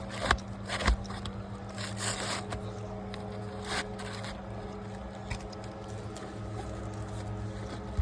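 Asphalt shingles being worked in a repairability test: a few sharp knocks and scraping sounds, over a steady low hum.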